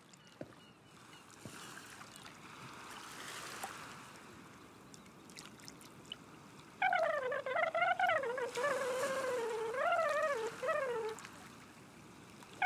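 A soft rushing noise swells and fades over the first few seconds. About seven seconds in, a loud, high warbling sound starts, its pitch wavering up and down. It breaks off a few seconds later and starts again at the very end.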